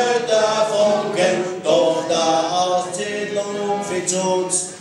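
A man singing held notes to acoustic guitar accompaniment.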